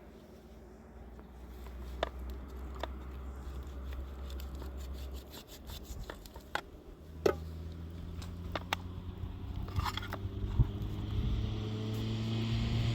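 An engine running, its pitch and level slowly rising from about seven seconds in, with scattered light clicks and knocks.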